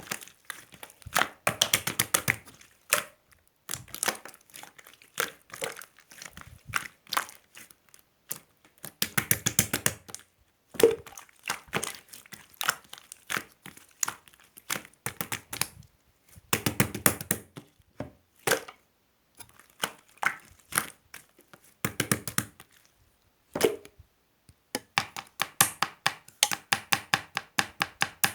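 Slime being squeezed and kneaded by hand, giving clusters of rapid little crackles and pops from trapped air, in bursts every second or two.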